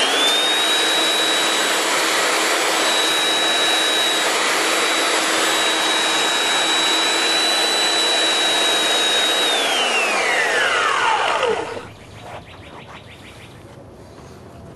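Electric belt sander worked against the edge of a mirror's glass: it spins up and runs with a steady high whine and sanding noise for about nine seconds, then is switched off and winds down with a falling whine, stopping near the end.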